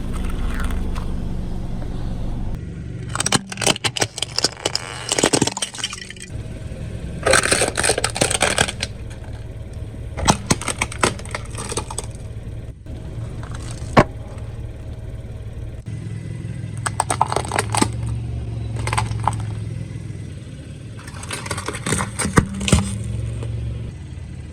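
Car tyres crushing crunchy objects: bursts of crackling and snapping come in about six separate runs, with one single sharp crack partway through, over the steady low hum of the car's engine.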